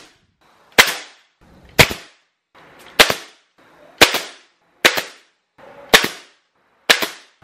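Bostitch pneumatic finish nailer firing seven times, about once a second, driving nails through a wooden shelf board into its side runners; each shot is a sharp crack that dies away quickly.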